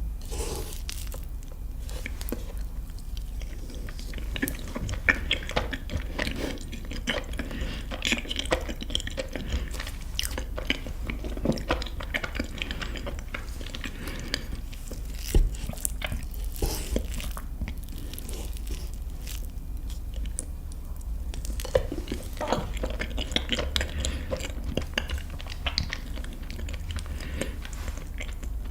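A person eating chocolate cake close to the microphone, mukbang-style: steady chewing and biting, with irregular crunches and sharp clicks.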